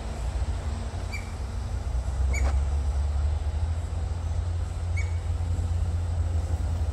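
A low, steady rumble that grows a little louder about two seconds in, with three short sharp ticks about one, two and a half and five seconds in.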